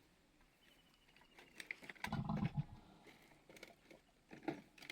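Faint outdoor sound: nearly quiet at first, then a short low sound about two seconds in, followed by a few scattered faint clicks and knocks.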